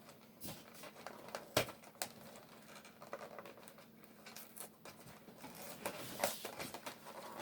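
Faint scattered clicks, taps and scratching of a cardboard advent calendar door being handled and cut at with scissors, with one sharper click about a second and a half in and busier rustling near the end.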